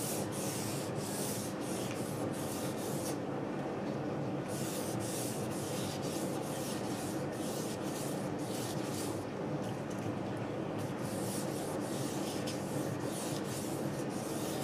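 Wet sandpaper rubbed by hand along a polyurethane-finished guitar neck: quick back-and-forth scratchy strokes, about two or three a second, with two short pauses about three and nine seconds in. It is the fine-grit wet sanding that breaks the glaze to level the finish.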